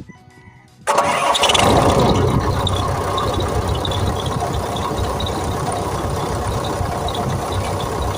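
XCMG XE135B excavator's diesel engine starting about a second in with a sudden loud burst, then settling into a steady idle, with the fan belt and aircon belt freshly adjusted.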